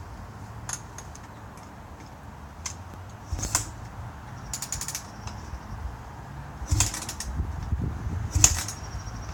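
Scattered mechanical clicks and knocks, with a quick ratcheting run of ticks about halfway through and a couple of louder knocks near the end; no engine running yet.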